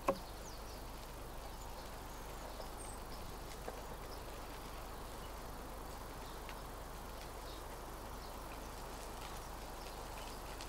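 A single sharp knock with a brief ring just after the start, as a knife meets the wood of the log, and a smaller click a few seconds later. Faint, scattered high chirps of small birds run over a steady background hiss.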